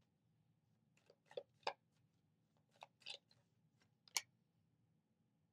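Tarot cards being handled: a handful of soft clicks and taps in small clusters over about three seconds, the last one the sharpest.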